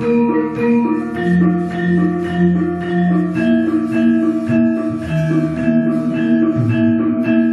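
Javanese gamelan playing an instrumental passage: struck bronze metallophones ringing layered notes in a steady beat.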